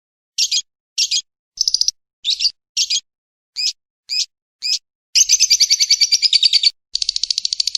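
Recorded lovebird and woodpecker calls. First come about eight short, high, rapidly pulsed chirps with gaps between them. Then, about five seconds in, a long fast trill starts, breaks off briefly and starts again.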